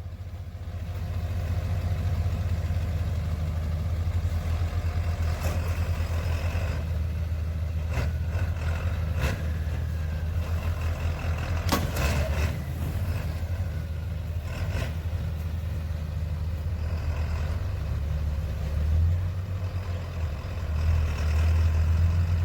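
Pickup truck engine idling steadily, with a few sharp clanks about a third and halfway through.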